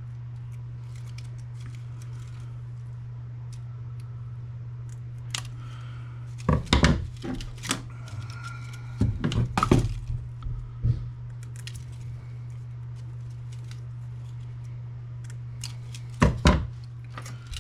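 Small plastic and metal printer parts being handled and dropped, knocking and clattering in a few short bursts, over a steady low hum.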